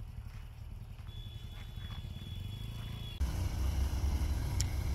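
Steady low outdoor rumble with a thin, high, steady tone for about two seconds. The rumble jumps abruptly louder a little past three seconds in, and there is a short sharp click near the end.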